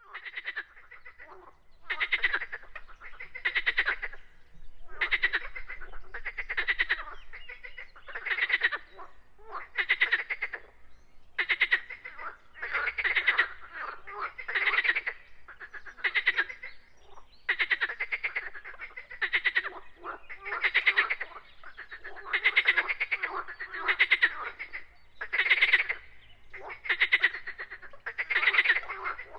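Frogs croaking in a chorus: many overlapping trilled calls, each well under a second long, following one another about once a second without a break.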